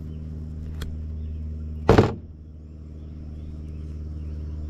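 A steady low mechanical hum runs throughout. There is a light click about a second in and one loud, brief knock about two seconds in.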